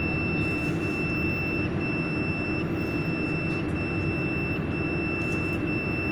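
Water chiller of a laser welding machine running with a steady mechanical hum from its fan and pump, over which a continuous high-pitched alarm tone sounds while the chiller's display shows error code E06.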